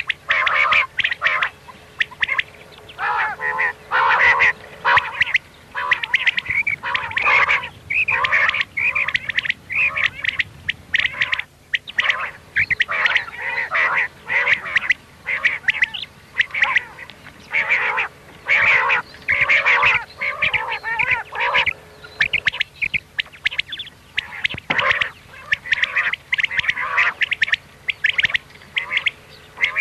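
Recorded common quail calls for luring quail: a dense run of short, repeated calls, several birds overlapping, with a brief lull about twelve seconds in.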